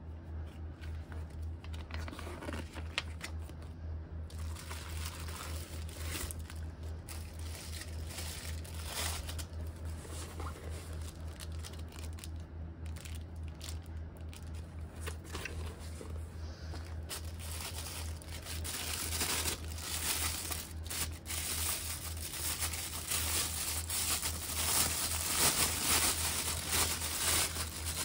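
Plastic packaging crinkling and rustling as hands handle and unwrap the bagged binoculars and a cloth in a small plastic bag, with paper rustling from an instruction leaflet at first; the crinkling grows louder and busier toward the end. A steady low hum runs underneath.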